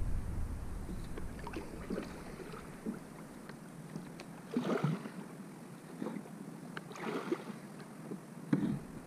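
Kayak paddle strokes in river water: a swishing splash every couple of seconds, with small knocks and clicks between them. A low rumble fades out over the first few seconds.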